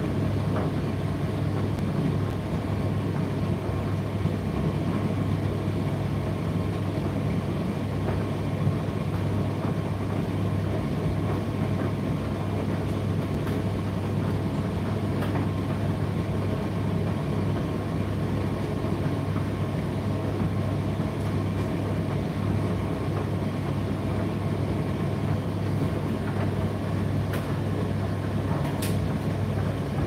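Indesit IDC8T3 8 kg condenser tumble dryer running mid-cycle with a steady low hum and a few faint clicks.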